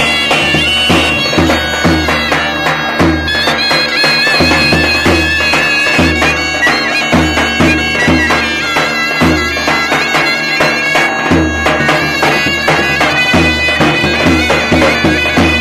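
Two zurnas and a davul playing an improvised Roman havası: the lead zurna plays a wavering, ornamented melody over the second zurna's held drone, with the davul beating a steady rhythm.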